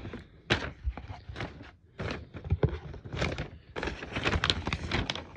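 Tissue paper rustling and crinkling in irregular bursts as it is folded back by hand, with a few light knocks of handling.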